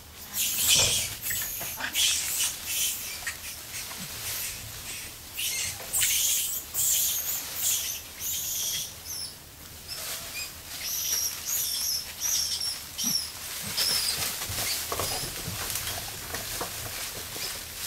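Formosan rock macaque rummaging through dry leaf litter: irregular crackling, scratchy rustles of dry leaves.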